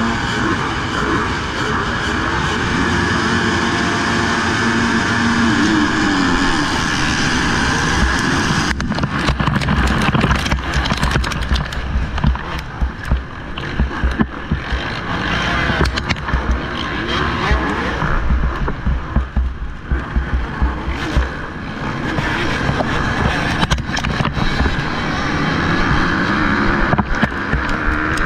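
Motocross bike engine running and revving, heard from an onboard camera with wind buffeting the microphone. About nine seconds in, the steady high hiss thins and heavy, uneven low thumps and buffeting take over.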